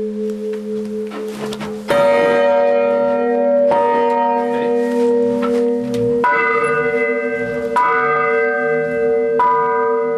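Church bells ringing, heard from right beside them in the bell chamber. There are five loud strikes about one and a half to two and a half seconds apart, and each one rings on under the next.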